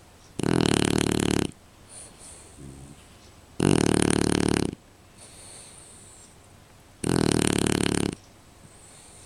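Shar-pei puppy snoring in its sleep: three loud snores, each about a second long and about three seconds apart, with softer breaths between them.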